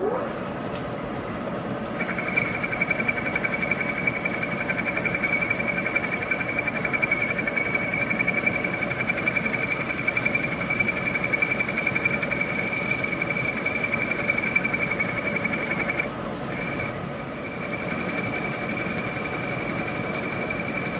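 Milling machine spindle starting up and running a boring head. About two seconds in a steady high-pitched whine joins as the boring bar cuts out the old sintered-bronze (Oilite) bush from the aluminium arm. The whine breaks off briefly near the end, then resumes.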